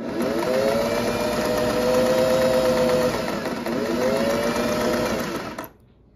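1950s Singer 403A sewing machine running and stitching fabric in a wavy-line pattern set by its fashion disc. The motor speeds up at the start, runs steadily, slows briefly about three seconds in, picks up again and stops near the end.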